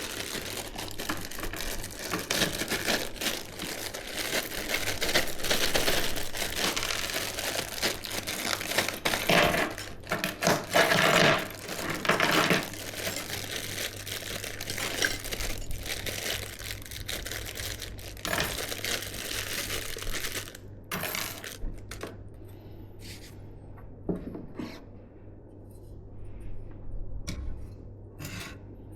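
Hands handling computer parts and packaging: rustling with frequent small clinks and taps. After about twenty seconds this thins out to a few scattered light clicks.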